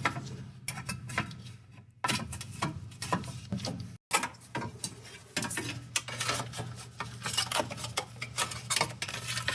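Irregular clicking and light metal clatter of hand tools working on the engine, over a steady low hum. The sound cuts out briefly twice.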